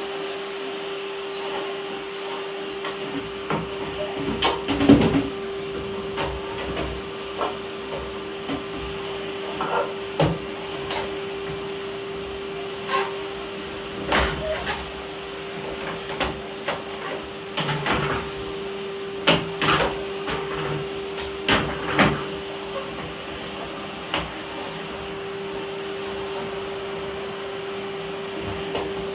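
Vacuum cleaner running with a steady motor hum and whine. Irregular knocks and clacks are heard over it from about three seconds in until near the end, the loudest around five seconds in and again about twenty seconds in.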